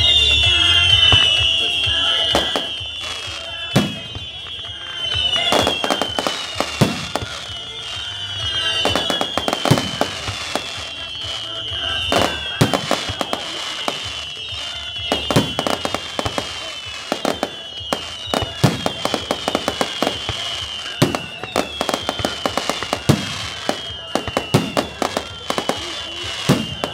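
Fireworks display: aerial shells bursting one after another with sharp bangs and crackling, over a high tone that falls in pitch again and again.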